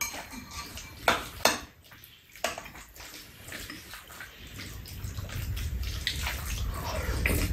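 Metal spoons clinking and scraping against bowls, with the wet mouth sounds of people eating a rice bowl; a handful of sharp clicks are spread through. A low rumble builds in the second half.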